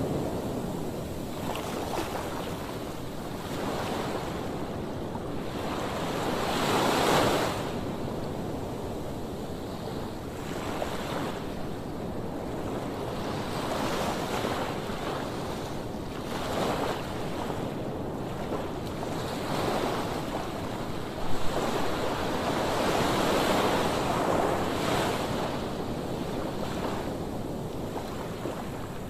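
Sea waves washing onto a sandy beach, the surf swelling and ebbing every few seconds, with wind on the microphone. There is a brief thump a little past two-thirds of the way through.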